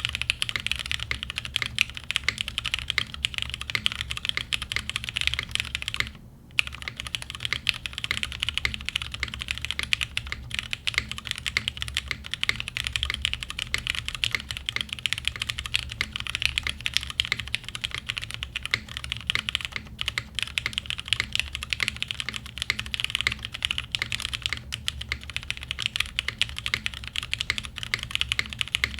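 Fast, continuous typing on a Frog TKL mechanical keyboard with an aluminum plate, lubed Cherry Black Diamond polished linear switches and GMK keycaps. The keystrokes come thick and quick, with one brief pause about six seconds in.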